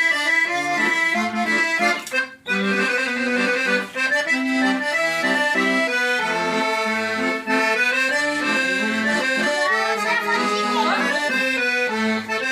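Accordion playing a traditional tune: held chords over short, separate bass notes, with a brief break about two seconds in.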